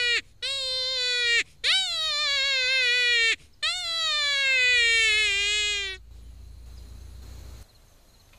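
Kenai Kryer predator call playing a wailing distress cry: three long cries, each jumping up sharply and then sliding slowly down in pitch, with short breaks between them. The cries stop about six seconds in, leaving a faint low rumble.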